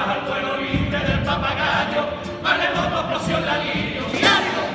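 Male carnival chorus singing a popurrí together, several voices in unison, with guitar accompaniment; the loudest moment comes about four seconds in.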